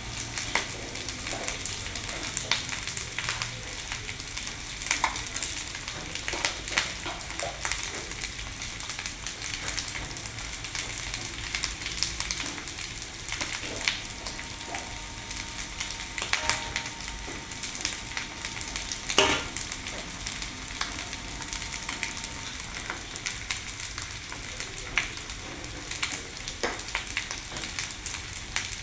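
Fried rice sizzling in a hot pan as it is stir-fried, with a steady frying hiss and frequent sharp clicks and scrapes of the spatula against the pan.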